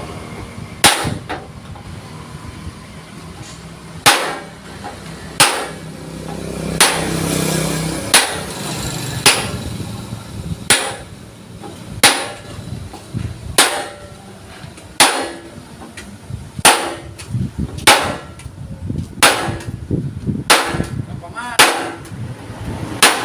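Hammer blows on a thick steel plate, sharp and ringing, struck at a slow, regular pace of roughly one every second and a half while the sheet is being shaped.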